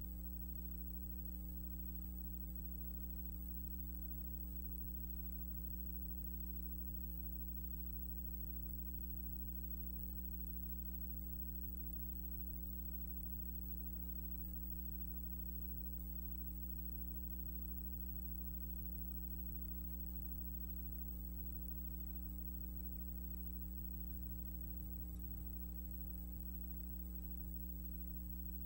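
Steady electrical hum, low and unchanging, with a faint high whine above it and no other sound.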